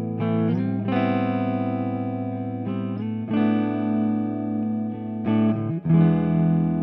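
Stanford Fleetwood CR electric guitar playing a run of chords through effects, each chord left to ring for a second or two before the next is struck.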